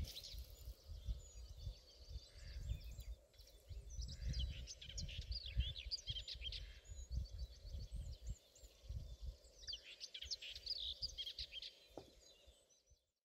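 Small songbirds singing, many quick chirps and trilled phrases going on throughout, over an uneven low rumble of wind on the microphone. It all fades out near the end.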